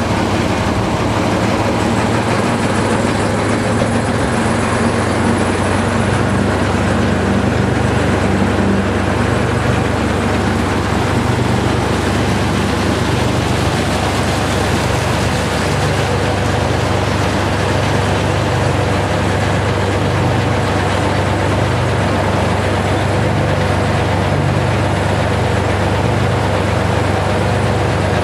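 Kromhout 3LSD marine diesel engine running steadily while the workboat is under way, heard on board, with the rush of the wake alongside.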